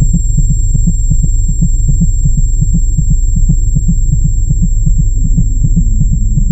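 Lightsaber sound effect: a steady low electric hum that throbs about six times a second.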